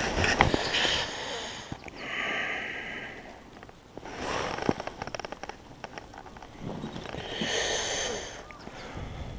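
A person sniffing and breathing hard close to the microphone, in four separate breaths, with a brief run of quick small clicks about halfway through.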